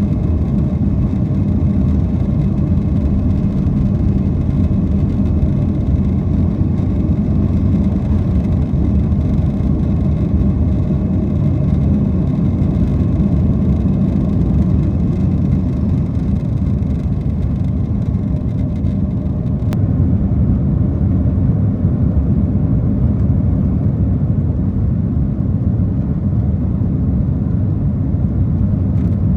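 Cabin noise of a Boeing 767-400ER climbing out after takeoff: a steady, deep rumble of engines and airflow heard from inside the passenger cabin.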